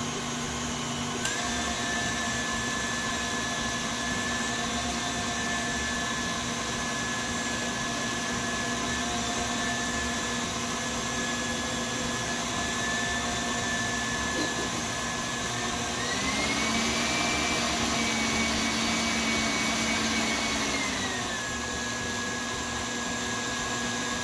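Electric tilt-head stand mixer running with its whisk beating egg whites and sugar into a meringue, on the way to stiff peaks. The motor's steady whine steps up in pitch with a click about a second in, rises higher again about two-thirds of the way through, then drops back down some five seconds later as the speed is changed.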